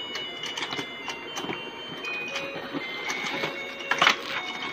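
Battery-powered musical fishing game toy playing its electronic tune in short beeping notes, with packaging handled and a sharp knock about four seconds in.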